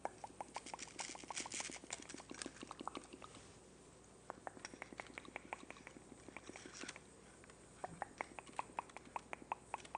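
A rapid series of light clicks, about six a second, in three runs with short pauses between them.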